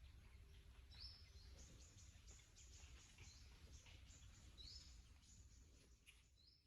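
Near silence: faint outdoor ambience with a bird giving three short, high, rising chirps a few seconds apart.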